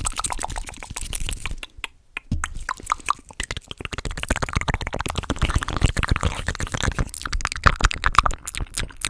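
Fast ASMR mouth sounds close to the microphone: a rapid, dense run of tongue clicks and lip smacks, with a short pause about two seconds in.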